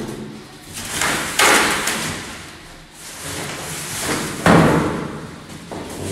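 Two heavy thuds about three seconds apart, each fading out over about a second, as the packaging of a large side-by-side refrigerator is handled and pulled away.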